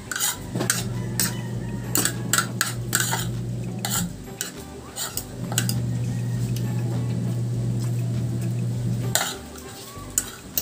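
Spoon and fork clinking and scraping against a ceramic plate of rice in quick, irregular clicks. A steady low hum runs underneath for much of the time, dropping out briefly twice.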